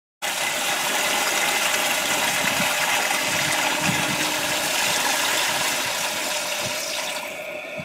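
Garden hose running at full flow into a plastic 5-gallon bucket, a steady loud rush and splash of water filling the bucket. It cuts in abruptly, and the high hiss thins out near the end.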